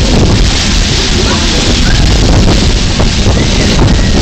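Loud, steady wind buffeting the microphone, uneven and heaviest in the low end.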